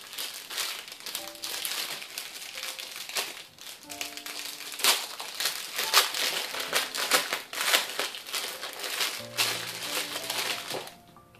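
Clear plastic bag crinkling and crackling densely as it is handled and turned over in the hands, stopping just before the end. Faint background music runs underneath.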